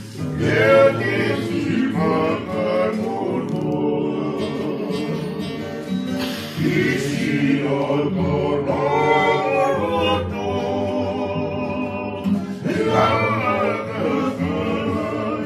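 A group of men singing together, accompanied by an acoustic guitar.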